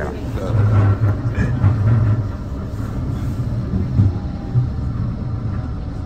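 Inside a Blackpool tram (a Bombardier Flexity 2), a steady low rumble from the tram running on its rails as it heads into its stop, with a faint whine over it near the start.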